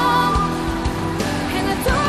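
Pop song playing as background music: a steady drum beat under a sung melody.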